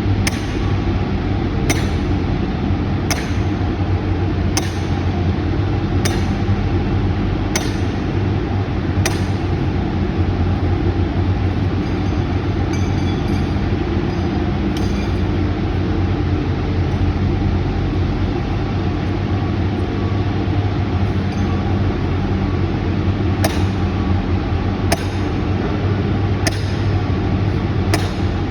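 Sledgehammer blows driving steel form pins, a sharp metallic clink about every second and a half, stopping for a long stretch mid-way and starting again near the end. A steady low engine rumble runs underneath.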